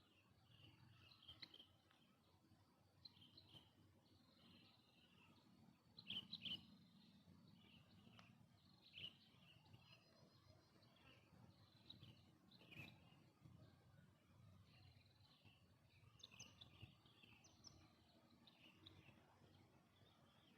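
Near silence: faint birds chirping now and then, with a faint steady high tone and a few soft clicks.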